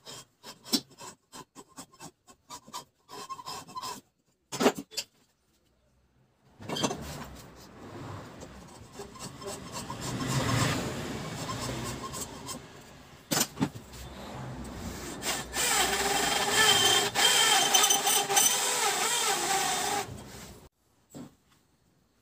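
Hand-turned valve seat cutter scraping metal from the valve seat of an old Royal Enfield Bullet cylinder head, reworking a seat that sealed on only half its face and was leaking compression. Short scraping strokes at first, then after a pause a continuous rasping that grows louder, with a wavering squeal in the last few seconds before it stops.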